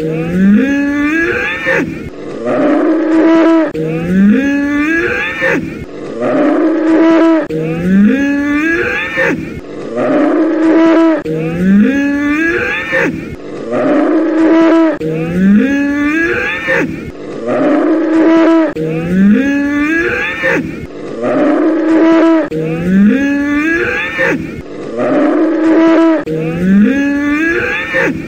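Bull bellowing over and over: the same rising call comes back about every two seconds.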